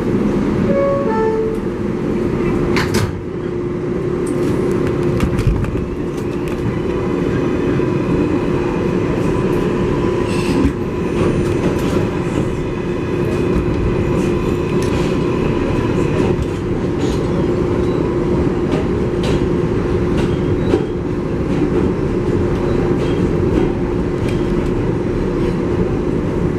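R188 subway train heard from on board as it pulls out and runs. A short rising whine near the start, then a steady running rumble with a constant hum, and scattered sharp clicks and knocks from the wheels on the track.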